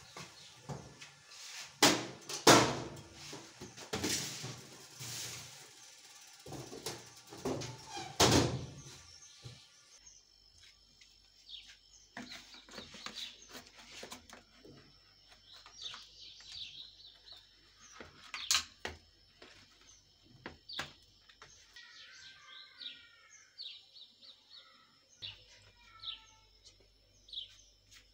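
A metal baking tray of bread rolls slid into an oven, a run of sharp metal knocks and clatters over the first ten seconds, the loudest about two seconds in. After that it goes quiet, with scattered small ticks and birds chirping, their calls clearest near the end.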